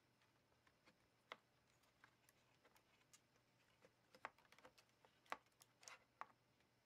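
Faint, irregular small clicks and light taps, a dozen or so, spread unevenly with a small cluster in the second half, as of small laptop parts being handled.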